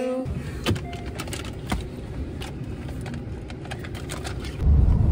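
Low rumble of a car heard from inside the cabin, with scattered light clicks over it. About four and a half seconds in, the rumble grows sharply louder.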